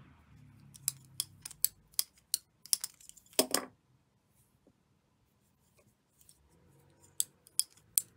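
Small sharp clicks and ticks from a plastic tatting shuttle and cotton thread being handled, a quick run of them in the first few seconds with one longer scrape, then a few more near the end.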